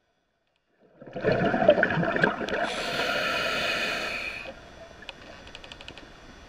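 Scuba diver breathing through a regulator underwater: about a second in, a loud rush of exhaled bubbles, then the steady hiss of an inhalation, which ends near the middle and leaves faint bubbling and light ticks.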